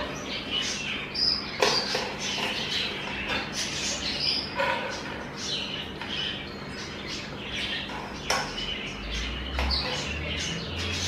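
Part-cooked rice being pushed out of a steel colander into a pot with a slotted spoon, with a few sharp knocks of the spoon against the metal. Birds chirp over it again and again.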